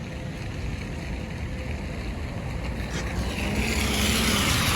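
Strong storm wind rumbling against the microphone in a tornado's inflow. About three seconds in, a louder rushing hiss swells up.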